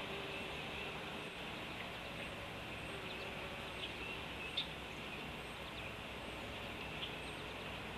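Steady outdoor background hiss with a few faint, short chirps or ticks scattered through it.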